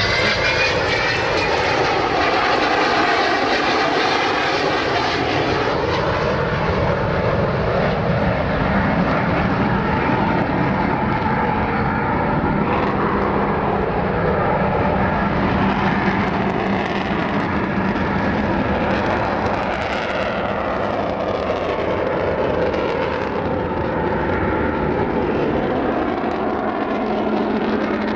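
Avro Vulcan XH558's four Rolls-Royce Olympus turbojets running loud and steady in a display flypast, the pitch of the roar slowly sliding up and down as the bomber moves across.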